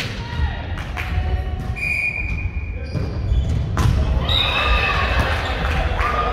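Volleyball rally in a large reverberant sports hall: several sharp hits of the ball, roughly a second apart, with players moving on the hardwood court and brief calls between hits.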